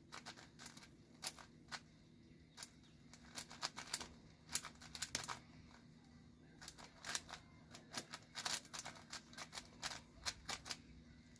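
A 5x5 speed cube being turned quickly by hand: irregular runs of sharp plastic clicks as its layers are twisted, while the centres are being built.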